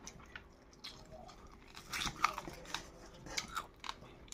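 A man chewing a mouthful of food close to the microphone, with crunching and wet mouth clicks, busiest about two seconds in and again about three and a half seconds in.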